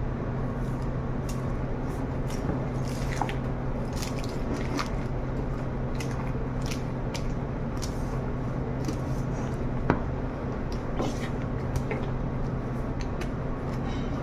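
A spatula folds thick gelato and chocolate pieces in a stainless-steel bowl: soft squishing with scattered light scrapes and taps against the bowl. A sharper tap comes about ten seconds in, all over a steady low hum.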